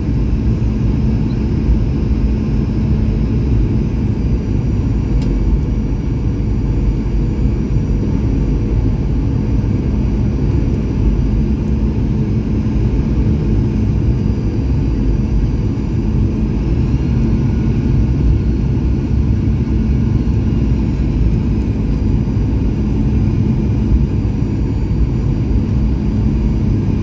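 Passenger aircraft cabin noise on final approach: a loud, steady low rumble of engines and airflow, with a faint high whine that shifts in pitch about two-thirds of the way through.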